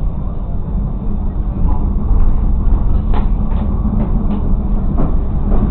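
Railcar rolling slowly along the track, heard from the cab as a steady low rumble of engine and wheels, with a few short sharp clicks from about three seconds in.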